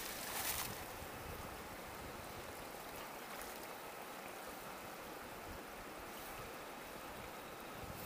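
Faint, steady water and open-air noise at a stream as a search magnet on a rope is hauled back through the water, with a short splashing swish about half a second in.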